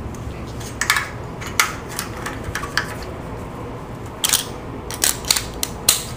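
Screwdriver and new tension wheel clicking and scraping against a metal screen door frame as the wheel is worked into place. Irregular sharp metallic clicks, with a cluster in the last two seconds.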